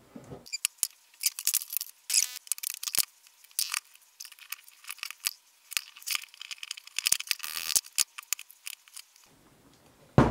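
Small steel machine parts (spindle shaft, gears and bearing parts) clicking, clinking and rattling as they are handled and fitted into a mill's spindle housing, with one short metallic ping that rings briefly about two seconds in.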